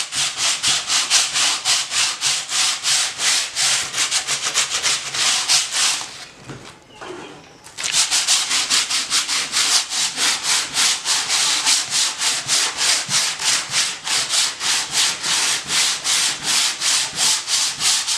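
Sandpaper rubbed by hand over cured polyester putty on fiberglass, in quick back-and-forth strokes about four or five a second, smoothing out the small lumps before the next coat. About six seconds in the strokes pause briefly, then carry on at the same pace.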